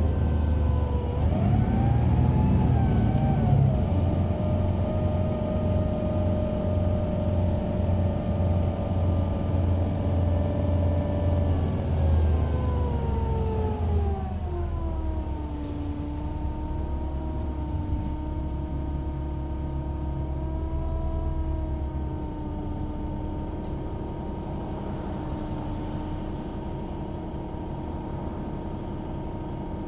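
DAF PR228S diesel engine of a Van Hool AG300 articulated bus, heard from inside the cabin, running under load at first. Its pitch then falls steadily between about twelve and fifteen seconds in as the revs drop, and it runs on at lower revs, with a few faint clicks.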